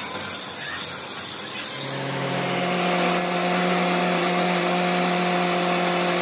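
Electric overhead hoist motor running with a steady hum of several pitches, starting about two seconds in, as it lifts a large cast pulley wheel on chains.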